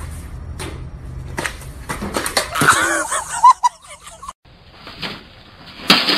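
Water gushing and spraying across a flooded kitchen floor, a noisy hiss over a steady low hum, with excited shouting in the middle. After a cut, a sudden loud bang near the end.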